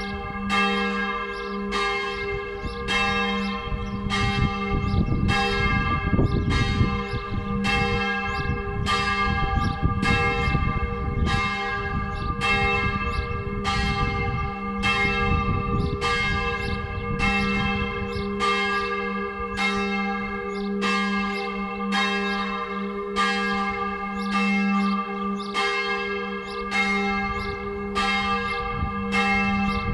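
Full peal of four swinging church bells tuned in G-flat, all ringing together for noon in the Tyrolean style. Strokes overlap in an uneven rhythm a little faster than one a second, over the deep hum of the largest bell.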